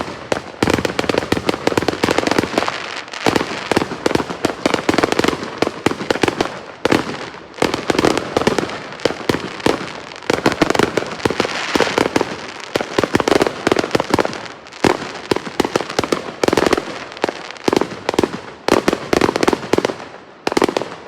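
Fireworks and firecrackers going off in a dense, continuous crackle of rapid sharp pops, easing briefly a few times before picking up again.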